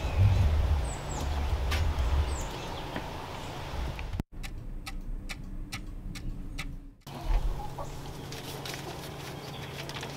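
Chickens clucking and small birds chirping over a low rumble. About four seconds in this gives way to about three seconds of a clock ticking, roughly three ticks a second. Then the birds and outdoor sound return.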